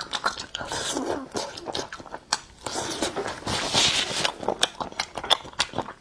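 Close-miked chewing of saucy food, with wet mouth clicks and lip smacks, and a brief breathy hiss a little past halfway.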